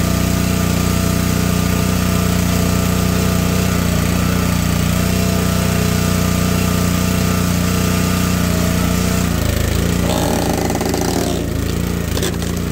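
Gasoline engine of a Gravely 22-ton log splitter running at a steady pitch. About nine seconds in, its note drops and wavers, and a few sharp clicks follow near the end.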